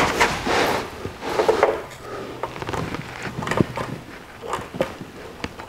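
Pencil scratching on a plywood board while a cast-iron manual steering gearbox is held and shifted against it, with scattered knocks and rubs of metal on wood, as the box's bolt holes are marked on the wood.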